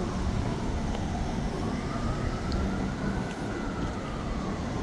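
Emergency-vehicle siren wailing in one slow rise and fall of pitch, over a steady rumble of city street traffic.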